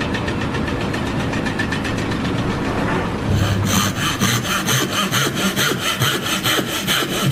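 Sawing with fast, even rasping strokes that get louder and sharper about three and a half seconds in.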